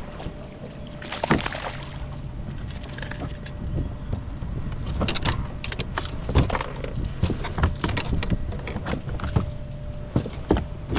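Irregular clicking and rattling of gear on a plastic fishing kayak, over a low rumble of wind on the microphone.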